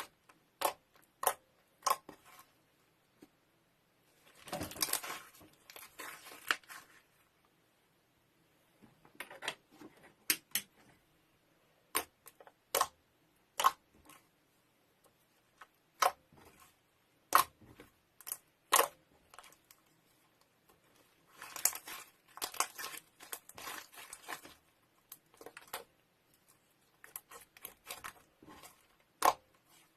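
Slime being handled: sharp pops and clicks one at a time, with two longer crackling, crinkling stretches, one about four seconds in and one past the twenty-second mark.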